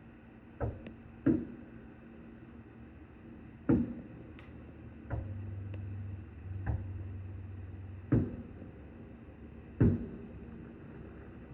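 Fireworks going off at a distance: about six separate booming bangs at irregular intervals, each with a short echoing tail. A low steady hum joins in for a few seconds in the middle.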